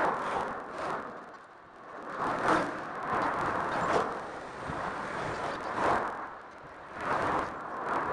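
Road traffic: cars passing one after another, each a short swell of tyre and engine noise that rises and falls, about five passes in a few seconds.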